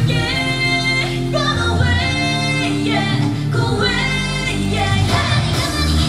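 K-pop song performed live, with female voices singing over a backing track and a heavy, sustained bass line.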